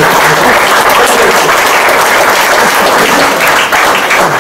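An audience applauding: steady, dense clapping from many hands.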